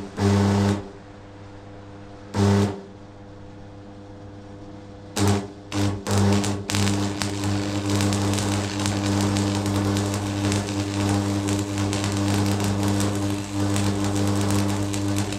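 DeWalt electric hammer being test-run. It starts with several brief trigger pulls, then runs continuously with a rapid hammering rattle from about seven seconds in.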